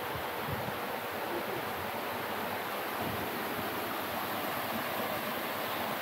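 Steady rush of stream water spilling down a small waterfall into a rock pool.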